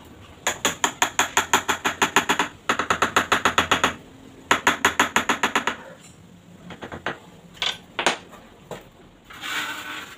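Rapid, even tapping on a ceramic wall tile, about eight taps a second in three runs, as the bottom edge tile is worked into place. Then a few separate knocks and a short scrape.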